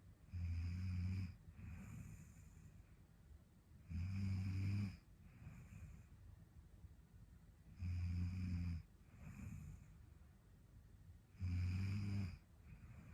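A sleeping young woman snoring: four low, rattling snores about every four seconds, each followed by a softer breath.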